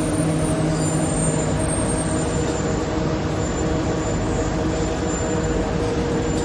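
Steady running noise of CNC machining machinery on a factory floor: an even mechanical din with a low hum and a few faint high whines held through it.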